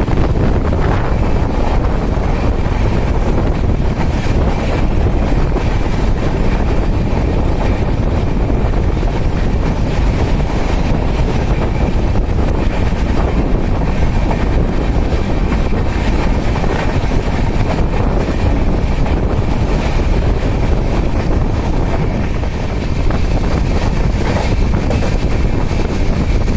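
Passenger train running at speed, heard from on board: a steady rumble of wheels on rail with wind buffeting the microphone.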